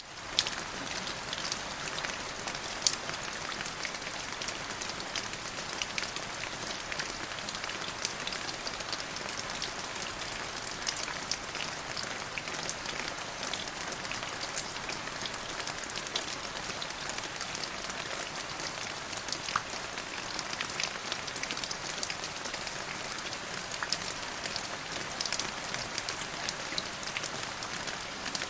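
Steady rain falling, a dense hiss dotted with the sharp ticks of individual drops. It swells back in at the very start after a brief cut.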